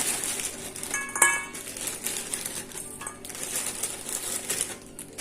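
Homemade croutons being tipped into a salad bowl: a run of small dry clicks and rattles, with one louder clink about a second in.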